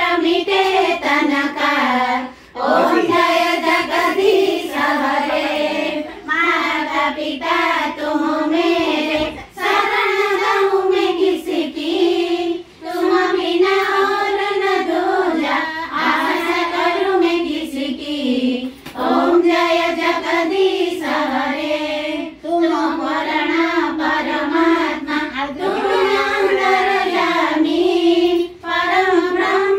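High voices of women and girls singing a devotional aarti song together, in long held phrases with short pauses for breath between them.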